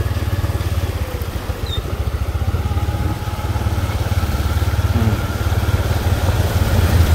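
Small motorcycle's engine running steadily under way, a rapid low pulsing, while an oncoming motorcycle and then a pickup truck pass close by through shallow floodwater. The rumble grows louder near the end.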